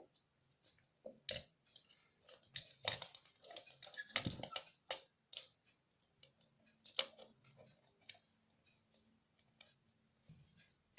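Irregular small clicks and taps of wires and electronic parts being handled while wiring an amplifier board, busiest in the first half and sparser after.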